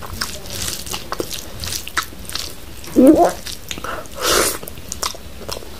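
Close-up eating sounds of a person eating rice and pork curry by hand: wet chewing and lip smacking with many small clicks. Two louder mouth sounds come about three and four seconds in.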